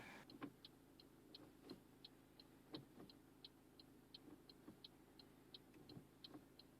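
Near silence with faint, even ticking about three times a second and a few soft low knocks.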